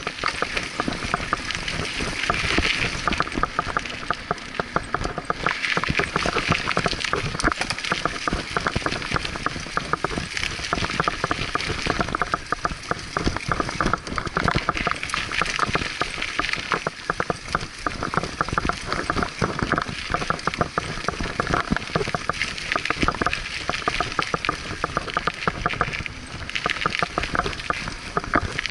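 Scott Aspect hardtail mountain bike riding fast down a dirt singletrack: tyres running over the dirt and the bike rattling over roots and bumps, a dense, continuous run of small clicks and knocks over a steady rushing noise.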